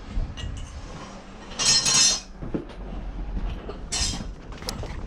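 Two short hisses, the first about a second and a half in and the second near four seconds, with light metal clinks and a low rumble, from soldering work on copper pipe.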